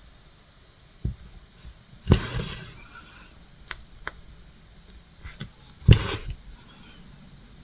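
A few knocks and clicks with short rustles from handling cross-stitch work at a table; two louder bumps, about two and six seconds in, each trail off in a brief rustle.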